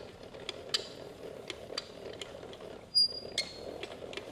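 Valor Fitness CA-27 leg stretch machine being cranked by its handwheel, running the gear along the freshly greased drive shaft: a soft mechanical run with regular clicks about twice a second, and a brief high squeak from the handle about three seconds in. The drive shaft runs clean, without clunking, a sign that it is properly lubricated.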